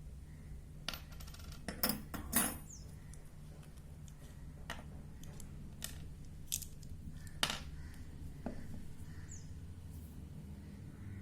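Light metallic clicks and clinks from a 3mm Allen key and the small parts of a bicycle rear derailleur being handled while the guide pulley bolt is removed. There are about seven separate clicks, the loudest pair about two seconds in, over a steady low hum.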